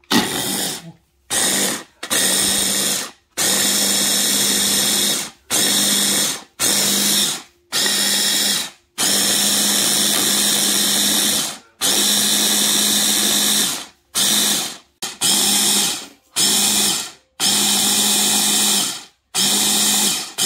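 Coobinex immersion blender with a chopper bowl attachment, pulsed on and off in more than a dozen bursts from about half a second to nearly three seconds long, with a steady motor hum. It is chopping and pureeing sliced pear, apple, ginger, garlic, onion and chili into a paste.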